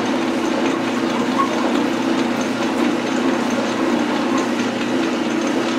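Metal lathe running steadily with a bar spinning in its 3-jaw chuck, giving an even machine hum.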